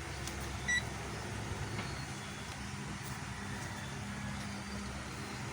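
A single short electronic beep, about a second in, from an electrical tester being used to check the cord's connection, over a steady low hum.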